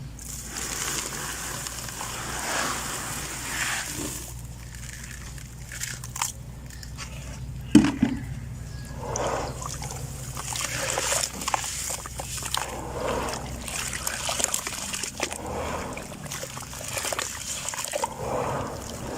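Lumps of red dirt being crumbled into water: irregular splashing and sloshing mixed with gritty crumbling, with one sharp knock about eight seconds in.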